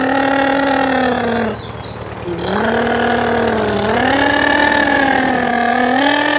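A person's voice imitating a truck engine with a long, wavering 'brrr' lip trill, broken once for a moment about one and a half seconds in, then carrying on.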